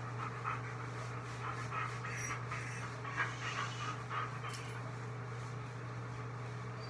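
German Shepherd panting in quick, rhythmic breaths that fade out after about four seconds, over a steady low hum.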